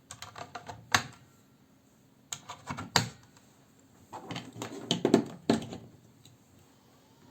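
Sharp plastic-and-metal clicks and clatter in three clusters, at the start, about two and a half seconds in, and again from about four seconds to five and a half: 18650 cells being set into the spring-loaded slots of a battery charger-analyser for a capacity test.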